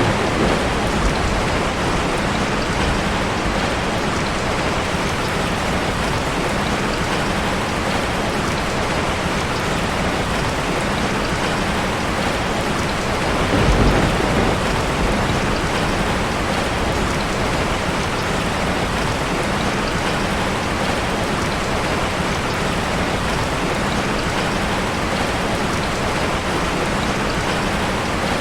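Heavy rain falling steadily, with a swell of low thunder rumble about halfway through.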